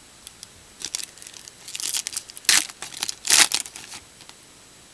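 Foil trading-card pack wrapper being torn open and crinkled. A run of crackling tears starts about a second in, with two loud rips near the middle.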